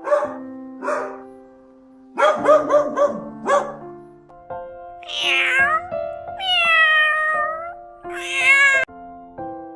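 A cat meowing again and again: a quick run of short mews, then three longer meows, the middle one drawn out, over background music with steady held notes.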